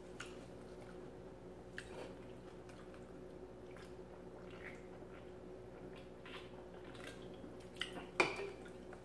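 Faint sounds of someone drinking from an aluminium soda can: small sips, swallows and clicks, with a somewhat louder knock about eight seconds in as the can is set back on the table.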